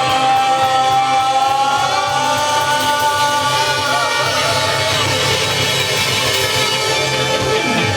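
Live band holding a long sustained final chord with one high note held over it at the close of a song; it breaks off near the end.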